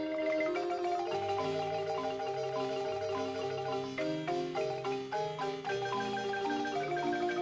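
Marimba music: mallets striking wooden bars in a quick melody over chords and a moving bass line.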